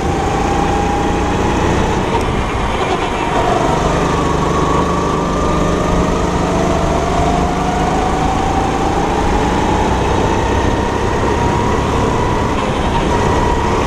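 Go-kart's 270 cc four-stroke single-cylinder engine running under throttle, with wind noise. Its pitch dips briefly about three seconds in, then climbs steadily as the kart accelerates through the corner.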